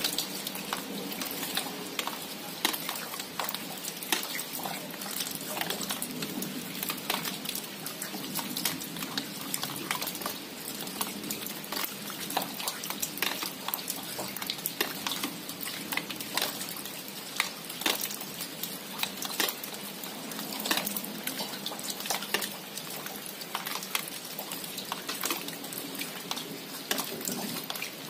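Steady rain falling, with many sharp, close drop hits scattered through it.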